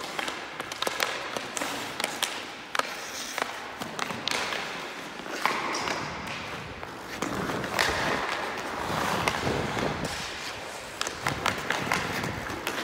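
Ice hockey skate blades scraping and carving on the ice, with sharp clicks and knocks of a stick striking pucks, several of them close together near the end.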